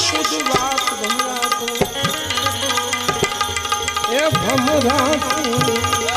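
A Gujarati devotional song performed live: a man sings over held harmonium chords, with steady hand-drum strokes. The voice drops out for a couple of seconds in the middle while the harmonium and drum carry on.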